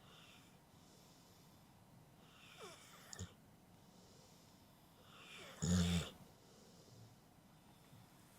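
Sleeping pit bull breathing and snoring. A breath with a falling whistle comes about two and a half seconds in, and a louder, low-pitched snore about halfway through.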